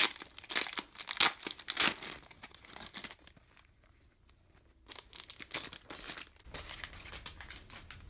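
Clear plastic sleeve crinkling as a hardcover diary is handled and slid out of it. The crackling comes in a dense run, stops for a second or so, then comes again and thins out near the end.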